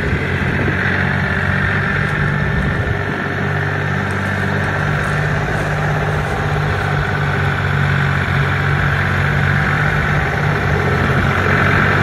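Compact tractor with a front-end loader, its engine running steadily as it drives along, getting a little louder near the end.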